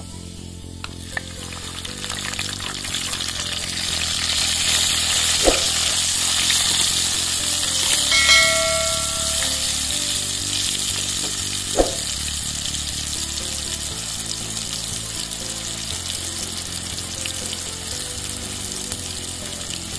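Spice paste sizzling in hot oil with fried onions, green chilies and curry leaves as it is stirred with a wooden spoon. The sizzle swells a couple of seconds in, and the spoon knocks sharply against the pot twice. A short chime sounds about eight seconds in, over background music.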